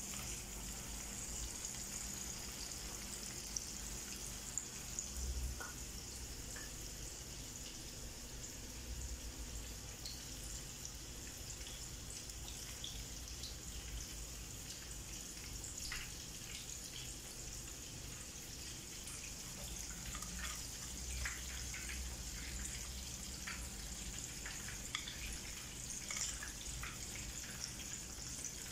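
Oil in a frying pan sizzling steadily as a crumb-coated chicken fillet shallow-fries, with scattered small pops and crackles that come more often near the end.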